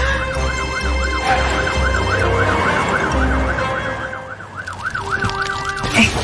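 Cartoon fire engine siren wailing in a fast, evenly repeating rise and fall, over a low throbbing rumble that stops about halfway through. The siren stops shortly before a brief clatter near the end.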